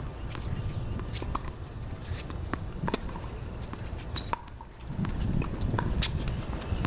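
Tennis rally on an outdoor hard court: scattered sharp knocks of the ball on racket and court, the loudest about three seconds in and again about six seconds in, with the player's shoes scuffing and patting as he runs. A low rumble sits underneath throughout.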